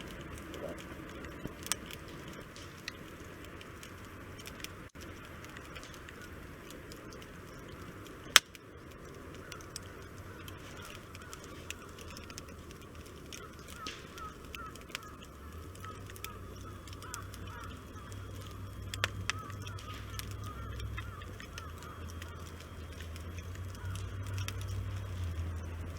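Wood fire burning in a three-sided fire grill, crackling with scattered sharp pops; one loud pop about eight seconds in. A faint warbling sound comes and goes from about nine to twenty-one seconds, and a low hum joins in about sixteen seconds in.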